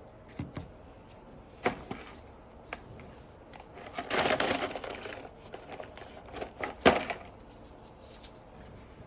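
Tools working around the glued glass back of a Samsung Galaxy S23 as it is pried off: scattered sharp clicks and taps, and about a second of scraping, crackling noise around the middle.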